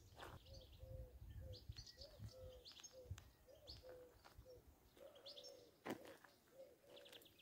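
Faint birdsong: a low call note repeated about three times a second, with short high chirps from small birds over it.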